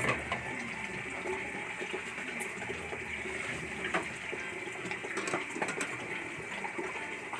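Omelette frying in hot oil in a pan: a steady sizzle with small scattered crackles.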